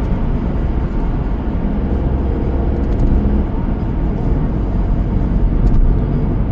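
Car on the move: a steady low rumble of road and engine noise, with a faint engine hum coming through about two seconds in.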